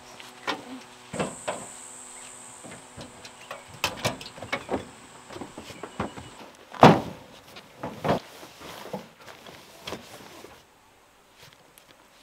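Irregular knocks, thumps and rustles of camping bags and gear being handled and loaded into a pickup's tray, the loudest thump about seven seconds in; it goes quiet shortly before the end.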